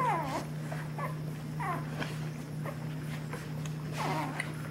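Two-week-old puppies squeaking and whimpering while they nurse, in several short cries that rise and fall in pitch, over a steady low hum.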